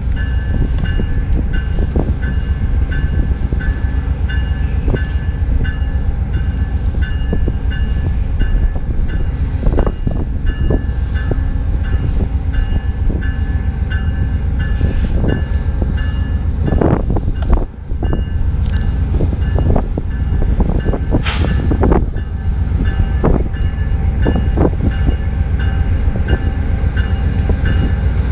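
GE P42DC diesel locomotive running as it slowly pulls a passenger train out of the station, with a deep steady rumble and a bell ringing at an even pace. Occasional knocks are heard, and there is one brief hiss a little past the middle.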